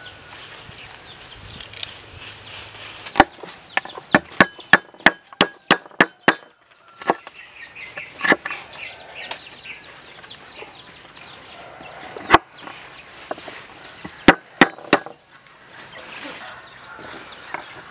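Heavy cleaver chopping lemongrass and galangal on a wooden board: a quick run of about ten strikes, roughly three a second, then a few single strikes. Chickens cluck in the background.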